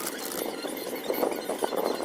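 Rapid, irregular clatter of keystrokes typed on an Ajazz AK992 gasket-mount mechanical keyboard with red linear switches.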